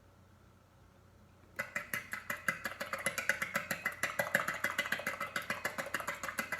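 Eggs being beaten in a bowl with a beater: rapid, even clicking strokes against the bowl, starting about a second and a half in.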